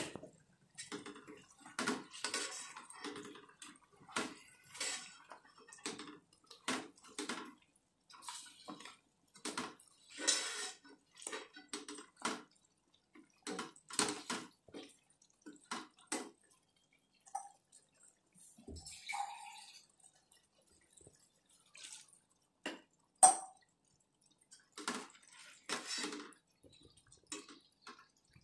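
Slotted spatula stirring mutton pieces in thick gravy in a non-stick kadhai: irregular short scrapes, taps and wet squelches, one after another with short gaps.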